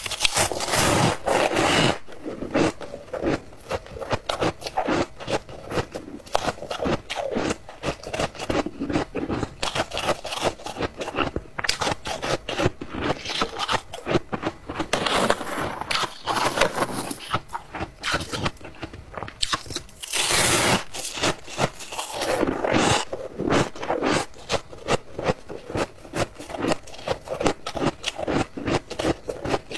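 Close-miked ice being bitten and chewed: a dense run of irregular crunches and crackles, with louder bursts of biting near the start, about halfway through and again a few seconds later.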